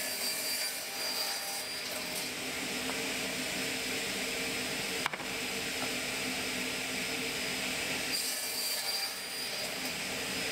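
Wadkin crosscut saw running with a steady motor hum, its blade cutting through a piece of timber, with a harsher cutting noise near the start and again near the end.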